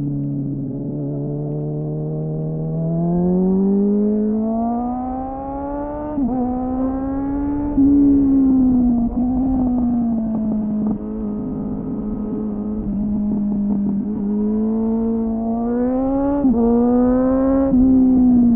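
2001 Suzuki GSF600 Bandit's inline-four engine, heard onboard through an SC-Project CR-T-style slip-on exhaust with a homemade dB-killer and slightly muffled. The revs climb under acceleration, hold fairly steady through the middle, then climb again with two quick drops in pitch from gear changes near the end.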